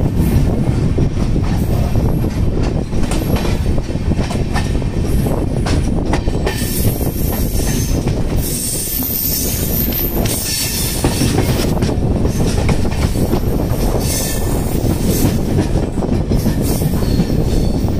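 Express passenger train running on the rails: a steady wheel-and-rail rumble with clicks over the rail joints. A high-pitched wheel squeal comes in for a few seconds in the middle and again near the end.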